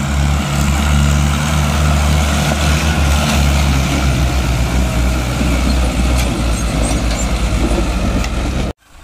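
Mahindra Arjun tractor's diesel engine working hard under load while towing another tractor on a chain: a deep, steady rumble that breaks into a fast throb about halfway through. The sound cuts off abruptly just before the end.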